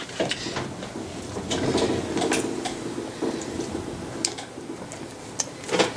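Yu-Gi-Oh trading cards and foil booster packs being handled on a wooden table: scattered light clicks and taps with soft rustling, and a louder handling sound near the end.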